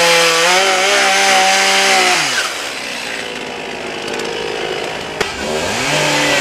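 ECHO gas chainsaw running steadily at high revs as it carves into wood. About two seconds in the throttle is released and the engine note falls away. There is a single click a few seconds later, and near the end a motor revs up again to a steady high note.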